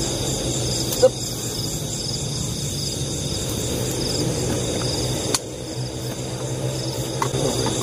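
Night chorus of crickets and other insects chirping in a steady, pulsing high trill, over a low steady hum. Two sharp clicks sound, about a second in and again past five seconds.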